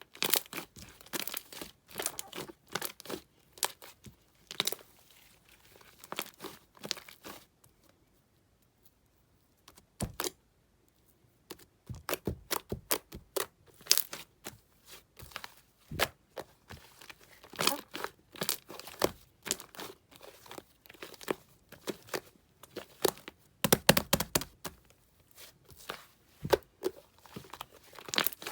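Fluffy slime made with lots of shaving foam being squished and pressed by hand: a dense string of crackling pops and clicks, with a pause of about two seconds a little after the first quarter.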